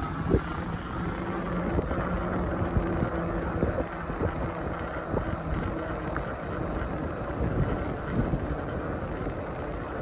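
A steady low mechanical hum, fading after about six seconds, over a rumbling background with wind on the microphone.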